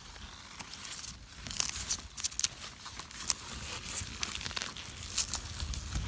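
Dry leaf litter and soil crackling and crunching as a hand grips a red onion's stem and pulls the bulb out of the ground, a run of irregular sharp crackles.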